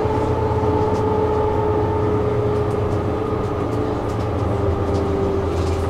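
Tram running between stops, heard from inside the car: a steady rumble of wheels on rail with an electric whine holding a steady pitch, which drops slightly about four seconds in.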